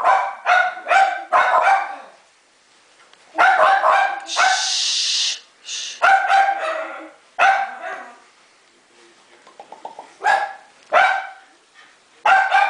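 Dogs barking in quick runs of short, high yaps, with pauses between the runs and a quieter stretch a little after halfway. A hiss lasting about a second comes about four seconds in.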